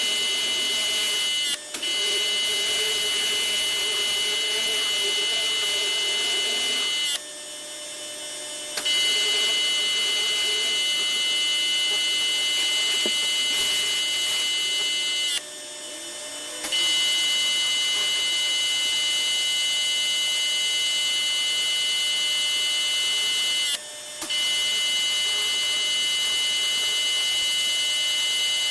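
Pressure washer spraying with a steady high-pitched whine, cutting out briefly several times and starting again.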